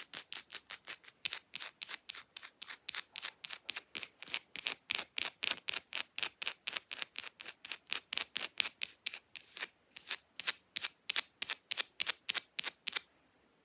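Acrylic fake nails scratching fast across an object in rapid, even strokes, about five a second, stopping just before the end.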